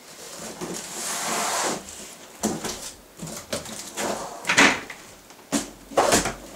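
Large cardboard box holding a computer case being handled and turned upside down: a rustling scrape of cardboard flaps at first, then a string of knocks and bumps, the loudest about two-thirds of the way through, and a heavier thump near the end as the box is set down on the floor.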